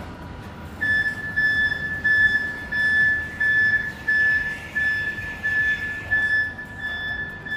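Flexi articulated forklift's warning alarm beeping while the truck moves: a steady high-pitched tone in repeated pulses, about three every two seconds, starting about a second in.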